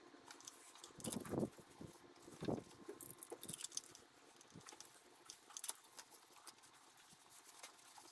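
Faint scattered clicks and two louder dull knocks, about one and two and a half seconds in, from a spark plug wrench and gloved hands working at the spark plug holes of a 2000 Suzuki Hayabusa's engine.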